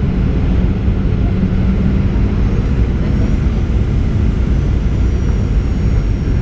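Steady cabin noise of a Boeing 737-800 on approach, heard from a seat by the wing: a low rumble of airflow and its CFM56 turbofan engines, with a low hum that fades about two seconds in.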